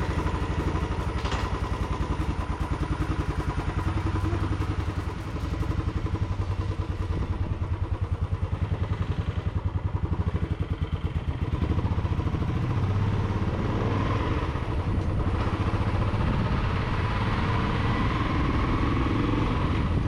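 Royal Enfield Classic 350 BS6's 346 cc single-cylinder fuel-injected engine running with an even pulse of firing strokes as the motorcycle is ridden along a road.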